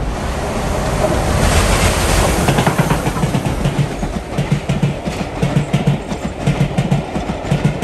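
Steam-hauled train passing close by: a loud rush of noise as Merchant Navy class locomotive 35018 and its coaches go by, then from about halfway a steady rhythmic clatter of wheels over rail joints, coming in quick pairs.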